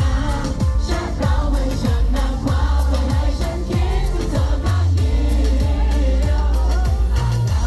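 Live pop song with a male singer's voice over loud bass and drums, a steady beat of about two hits a second.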